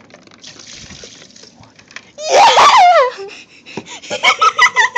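Children's excited vocalising: after a brief faint hiss, a loud high squeal with sliding pitch about two seconds in, then quick bursts of giggling near the end.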